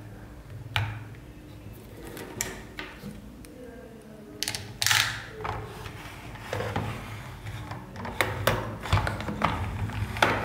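Hard plastic toy pieces being handled on a tabletop: scattered light clicks and knocks, a louder scrape about halfway through, and a quicker run of clicks near the end.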